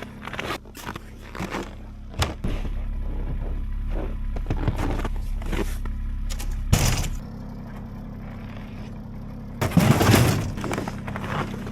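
Scraping and knocking, with sharp knocks about two seconds and about seven seconds in, and a louder scraping crash about ten seconds in. A low steady rumble runs from about two to seven seconds in.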